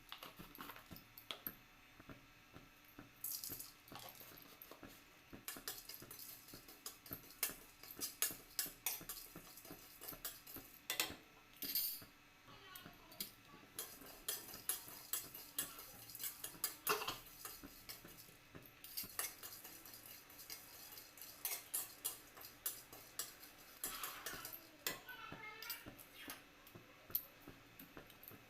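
Kitchen utensils clinking and tapping irregularly: metal spoons and dishes being handled, with a few sharper knocks now and then.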